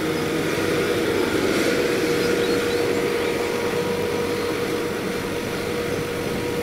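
Volvo crawler excavator running: steady diesel engine and machine noise with a constant hum held at one pitch.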